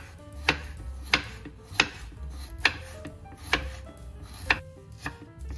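Chef's knife slicing fresh ginger on a wooden cutting board: about seven sharp knocks of the blade meeting the board, slightly uneven, under a second apart.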